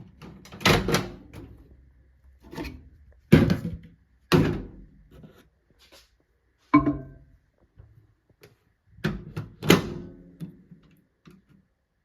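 A string of separate knocks and thuds indoors, about eight in all with short gaps between them, like things being handled, set down and closed in a small room. One knock, a little past halfway, rings briefly.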